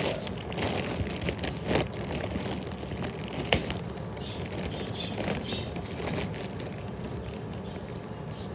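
Clear plastic bag crinkling and rustling as it is handled, with irregular sharp crackles and one louder crackle about three and a half seconds in.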